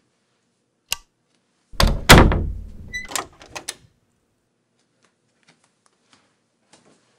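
A door: a sharp click about a second in, then a heavy double thud with a low rumble that dies away, followed by a few small clicks.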